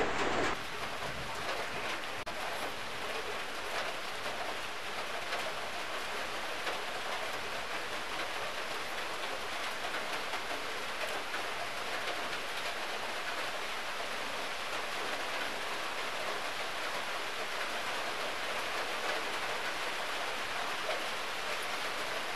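A steady, even hiss of background noise, with faint sounds of a child eating noodles with chopsticks.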